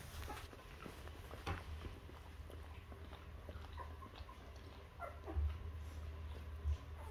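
Mother dog licking and cleaning her newborn puppies: wet licking and smacking with small clicks, and a few soft low thumps.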